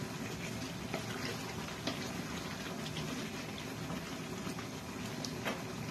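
Chicken and potato curry bubbling and sizzling in an open pan, a steady hiss with scattered small pops, as its liquid cooks down.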